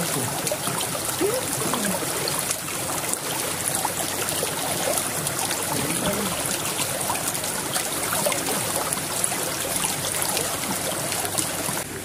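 Shallow stream running with a steady rush of water, with the splashing of steps wading through it.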